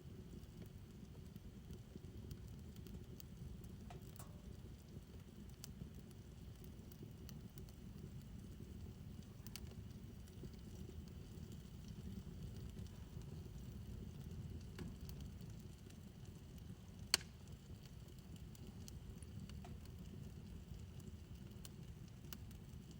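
Fire burning in a backyard fire pit: a faint, low, steady rumble with sparse light crackles, and one sharper pop about three-quarters of the way through.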